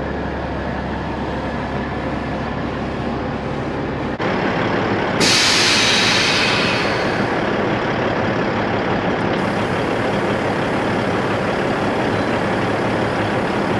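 Kenworth T800 idling, with a sudden loud hiss of air about five seconds in that tapers off over a couple of seconds: the air-ride suspension bags being dumped.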